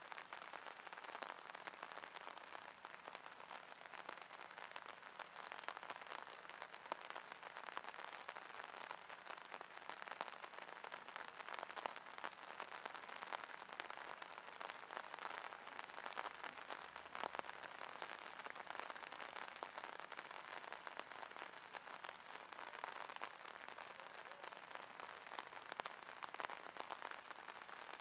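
Steady rain falling, a dense, even crackle of many small drops.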